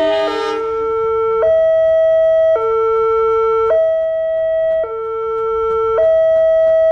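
Railway level-crossing warning alarm sounding a two-tone electronic ding-dong, switching between a low and a high note about once a second, the warning that the barriers are closing for an approaching train. A brief horn-like blast sounds over it at the very start.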